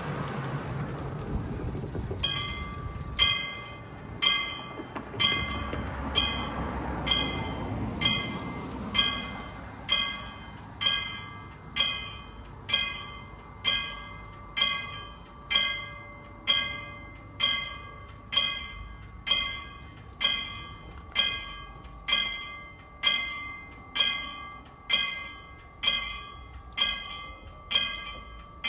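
Danish level crossing warning bell starting to ring about two seconds in, then striking steadily about once a second. This signals that the crossing is closing for an approaching light rail train.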